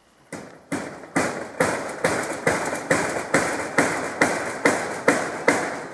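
Hammer nailing corrugated metal roofing sheets: a steady run of about a dozen sharp strikes, a little over two a second, each ringing briefly through the sheet metal.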